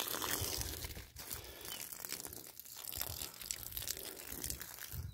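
Water from a garden hose pouring onto a mound of dry wood-shaving mulch around a sapling: a steady hiss with fine crackling as the shavings soak.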